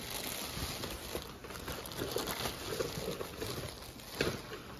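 Clear plastic packaging wrap crinkling and rustling as it is handled, with a few sharper crackles near the end.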